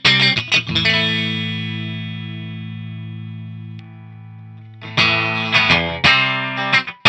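Greco SE 600 Stratocaster-style electric guitar with single-coil pickups, played through a Laney VH100R valve amp. A few short choppy chords, then one chord held ringing and slowly fading for nearly four seconds, then quick rhythmic strumming starts again about five seconds in.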